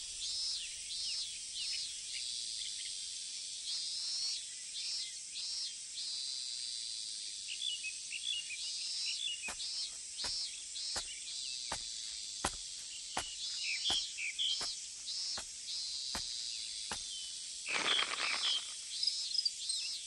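Forest ambience: small birds chirping in repeated short trills over a steady high insect hiss. From about halfway comes a string of about a dozen sharp taps, and near the end one brief louder sound that falls in pitch.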